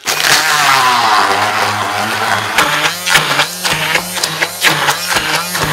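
Electric immersion blender switched on and running in a stainless steel saucepan, blending broccoli, nuts and parmesan into pesto. It starts suddenly with a steady motor hum, and from about halfway through many quick clicks and knocks run over the hum.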